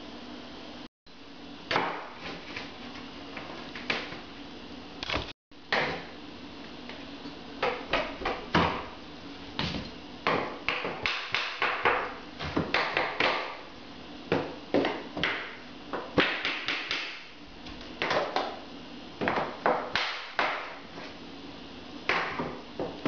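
Light hammer taps and metallic clicks coming in quick runs of several strikes, broken by short pauses, from small hand-tool work on a cable clip.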